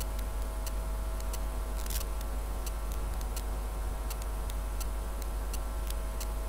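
Steady low electrical hum with faint irregular ticks scattered through it, a few a second, and a brief soft hiss about two seconds in.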